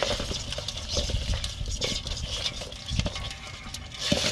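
Live crabs, small fish and snails moving about in a basin, making irregular clicks and scrapes against its sides.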